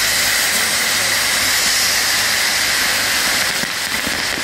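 Ground firework wheel of spark fountains burning with a loud, steady hiss. A few crackles begin near the end.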